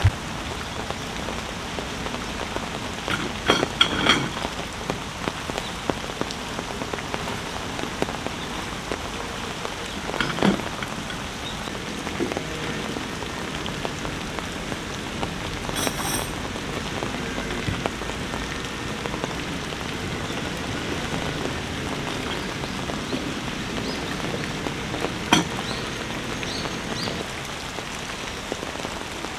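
Heavy rain falling steadily, with a few brief knocks and rustles about four seconds in, about ten seconds in and near the end.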